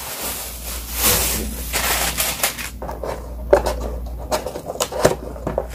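Takeout food packaging being handled and opened: rustling for the first couple of seconds, then a string of sharp clicks and light taps.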